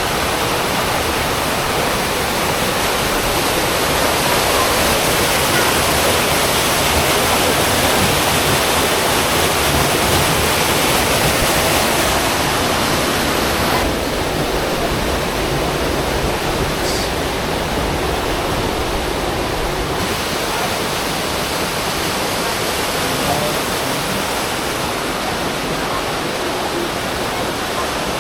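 Rushing water of the canyon's creek and waterfalls, a loud, steady roar of noise that gets a little quieter about halfway through.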